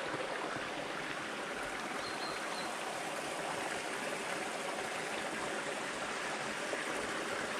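Small rocky stream running over stones: a steady rush and trickle of water.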